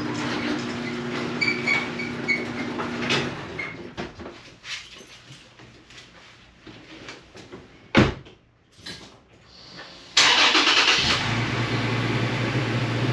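A car engine running with a steady hum that fades out about three seconds in, a single sharp thud near eight seconds, then an engine starting up and running loudly from about ten seconds in.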